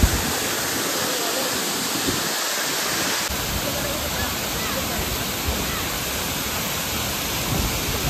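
Waterfall pouring down a rock face into a pool: a steady, even rush of falling water.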